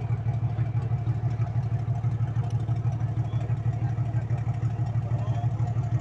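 Diesel engine of a river ferry boat running steadily, heard from on board as a low, fast, even throb.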